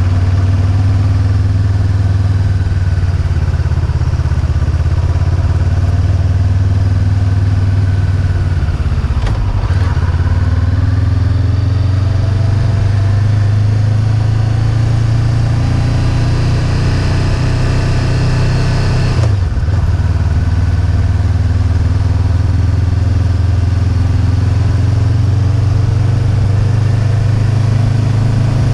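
Honda motorcycle engine running while riding along at steady speed. The engine note drops briefly twice, about a third and two-thirds of the way in, and each time climbs slowly back up.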